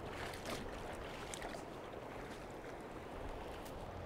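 Steady rush of a wide river flowing over a stony bed, with a few faint short splashes or knocks.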